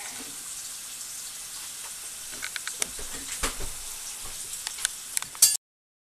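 Steady hiss of outdoor background noise on a handheld camera's microphone. From about two seconds in come a few sharp clicks and knocks of the camera being handled, then a loud crackle, and the sound cuts off abruptly as the recording stops.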